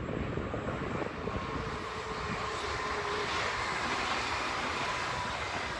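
Passing train: a steady rushing rumble with a faint whine that swells to its loudest around the middle and eases off towards the end.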